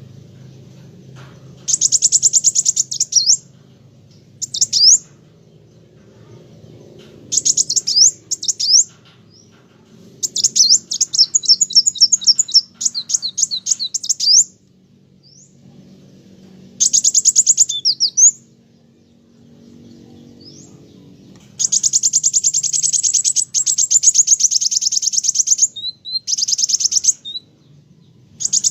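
Kolibri wulung sunbird singing vigorously in loud bouts of rapid, very high-pitched chips and trills with quick pitch sweeps. The bouts last from half a second to about four seconds, with short pauses between them.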